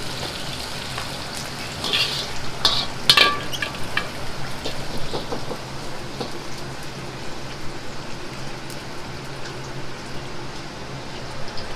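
Liver and sliced leeks frying in a wok of hot oil: a steady sizzle and bubble as they are oil-blanched before the stir-fry. A few sharp metal clanks of the ladle and strainer against the wok come about two to three seconds in.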